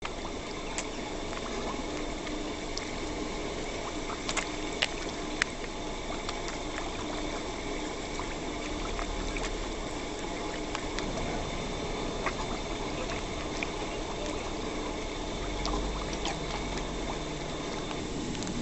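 Pond water sloshing and trickling as a crowd of koi splash at the surface, with a few sharp clicks about four to five seconds in.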